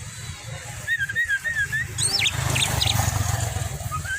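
Javan myna calling: a run of wavy, whistled notes about a second in, then a few sharp calls that sweep steeply up and down about two seconds in. A low rumble runs underneath, and a rushing noise swells in the middle.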